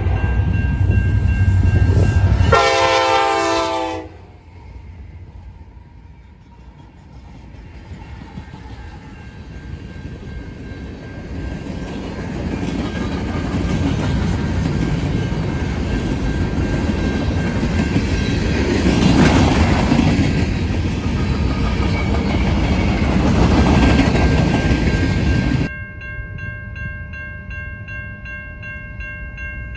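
Diesel freight train led by Norfolk Southern locomotives: heavy engine rumble, then one horn blast lasting about a second and a half, starting about two and a half seconds in. Loaded freight cars then roll past with steady wheel rumble and clatter that swells and peaks twice. Near the end this gives way abruptly to a quieter steady ringing.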